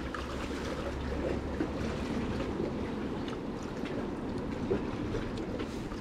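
Sea water washing and lapping steadily among concrete tetrapod blocks, with a few faint clicks.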